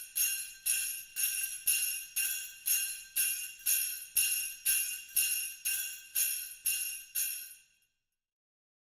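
Sleigh bells jingling in a steady rhythm, about two shakes a second, stopping shortly before the end.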